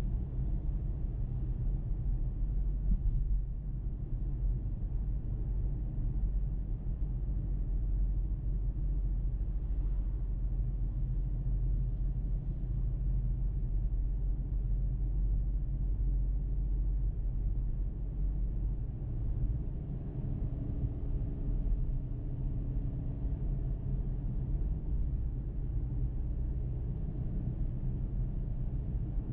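A car being driven, with a steady low rumble of road and engine noise.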